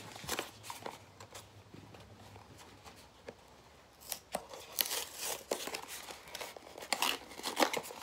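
Plastic toy packaging being handled and torn open. After a few faint clicks it breaks into a string of sharp crinkling and crackling from about four seconds in.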